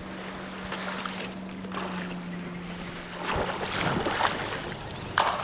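A hooked bass thrashing and splashing at the water's surface, starting about three and a half seconds in and getting louder. Before it, a steady low hum stops just as the splashing begins.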